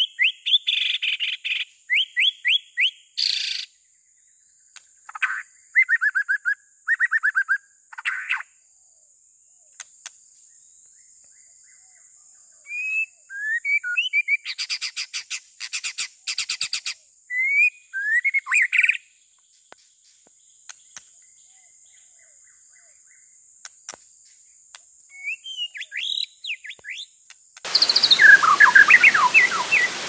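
White-rumped shama (murai batu) singing: short, varied whistled phrases with rapid trills and upslurred notes, separated by pauses. Near the end, running water from a small waterfall comes in under further song.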